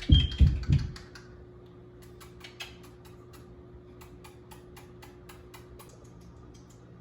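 Three heavy, dull thumps in the first second, then a string of light, irregular clicks and taps, several a second, that stops about a second before the end.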